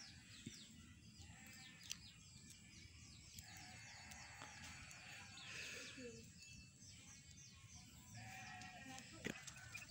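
Baby chick peeping in a fast, steady run of short falling chirps, several a second, faint. A short lower-pitched cry comes in a little past halfway.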